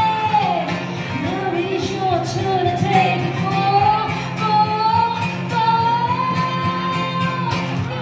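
A woman singing live while strumming an acoustic guitar; near the end she holds one long high note for about two seconds.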